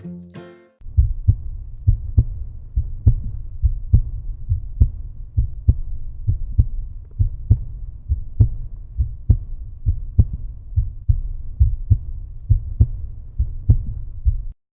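Outro background music with a deep, steady bass beat about once a second, cutting off abruptly near the end.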